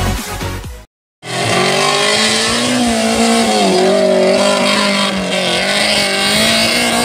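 Off-road 4x4's engine revving hard under load as it climbs a steep dirt hill, its pitch dipping and rising. Electronic dance music fades out in the first second, and the engine comes in after a brief silence.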